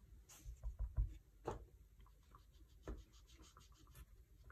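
Sponge dauber dabbing and rubbing ink in small circles onto a die-cut cardstock piece: a fast run of faint, even strokes, with a few soft knocks in the first three seconds.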